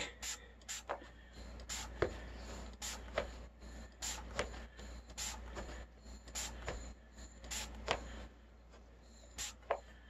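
Short squirts from a trigger spray bottle of dish soap, one or two a second and often in pairs, wetting the bead of a tubeless bicycle tire with soapy water to help the bead seat.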